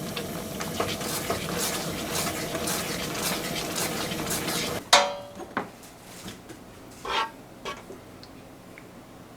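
A metal spoon scraping and clicking against a pot as plum jam is stirred. About five seconds in the stirring stops with a loud ringing clink, followed by a few lighter knocks and another ringing clink.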